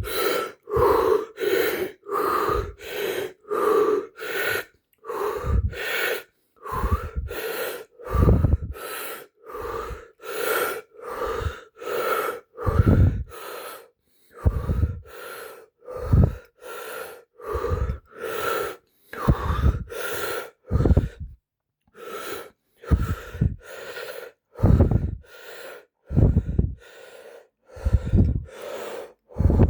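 A person breathing in and out hard and fast through the mouth, deliberately hyperventilating to load up on oxygen before speaking for a long stretch on one breath. The loud, rushing breaths come about two a second, with two brief pauses.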